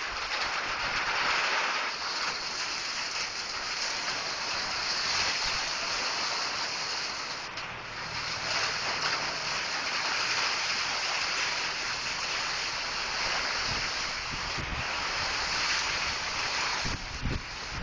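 Rain falling steadily: a dense, even hiss, with a few low bumps near the end.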